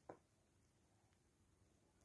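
Near silence: room tone, with one faint short knock just after the start.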